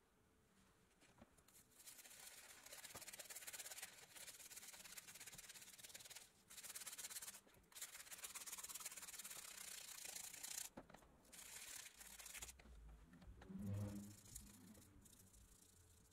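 Stiff-bristled dish brush scrubbing a Tonka toy truck's black rubber tire in soapy water. The scratchy bristle scrubbing comes in strokes broken by short pauses, and a soft low bump is heard near the end.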